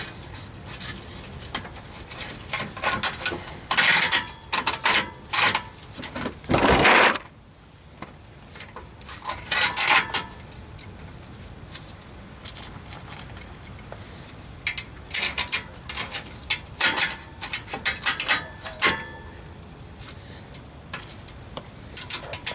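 Metal tools and exhaust clamp parts clinking and clattering in irregular handling, with a louder scraping rush about seven seconds in, then scattered clinks.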